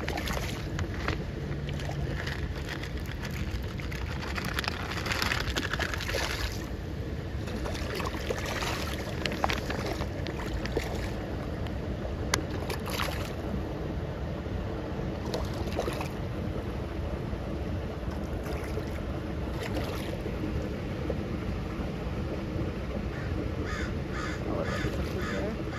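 Water splashing and churning at the surface of a hatchery pond as fish stir it up, with scattered sharper splashes. Crows caw several times in quick succession near the end.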